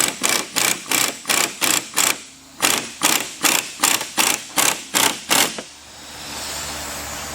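A ratchet wrench backing off the threaded rods of a coil spring compressor, clicking in quick repeated strokes about three a second, with a short pause about two seconds in; the strokes stop near the end and a steady hiss follows.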